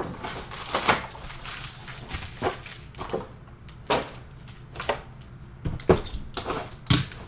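Cardboard Panini Prizm basketball hobby boxes and foil card packs being handled on a table: scattered knocks, taps and rustles, about one a second.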